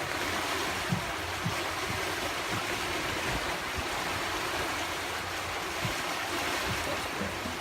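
Steady rush of water along a sailboat's hull and wind while under sail, with a few faint low thumps.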